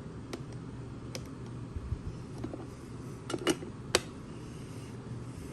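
Scattered light metallic clicks and taps of mortise lock parts being handled and tried, as a reshaped flat steel spring is tested in the lock body, over a steady low hum.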